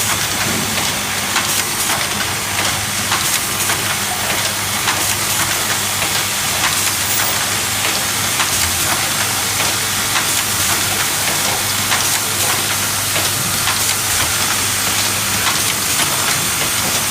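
Automatic clip-hanger assembly machine running continuously. The vibratory bowl feeders give a steady hum, and parts and presses add many rapid, irregular clicks and rattles over a constant hiss.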